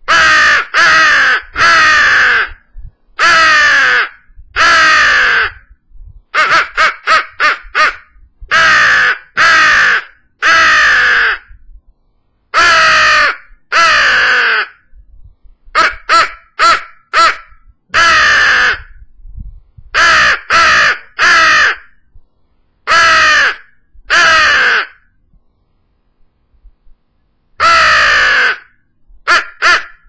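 Hand-blown crow call sounding a series of loud, harsh imitation crow caws in groups of two or three, each caw falling slightly in pitch, with two quick runs of short, clipped caws.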